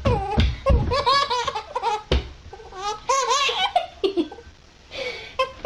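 Hearty laughter in repeated bursts, high-pitched, easing off about four seconds in before starting again.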